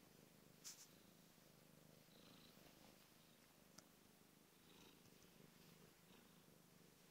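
Domestic cat purring faintly and steadily, close to the microphone. A short click sounds under a second in and a smaller one near four seconds.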